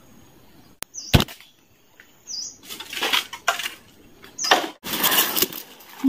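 A slingshot is released with a sharp snap about a second in. Then a shot black bulbul flaps its wings hard in dry bamboo leaves, in uneven bursts, with a few short high chirps.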